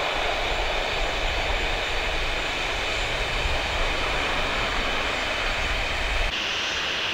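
Steady jet engine noise from an Airbus A320's twin engines as the airliner rolls out on the runway after landing. About six seconds in, the sound cuts off abruptly and gives way to a different, thinner jet engine sound.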